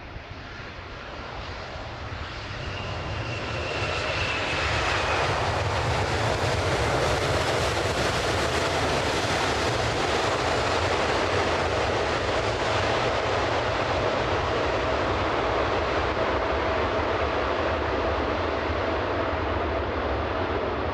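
Boeing 787-8 airliner's twin turbofan engines during its landing, growing louder over the first few seconds and then holding a loud, steady roar. A high whine falls in pitch a few seconds in, and a steady hum runs under the roar.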